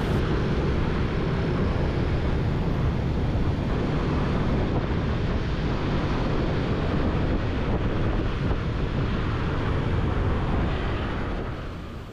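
Steady wind rush on the microphone over road and traffic noise from a moving vehicle, easing off near the end.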